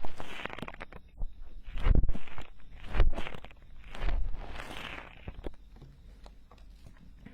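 Tools scraping and rubbing against the silicone ears of a binaural microphone: irregular crunchy scratches and sharp clicks, with louder strokes about two, three and four to five seconds in, growing quieter near the end.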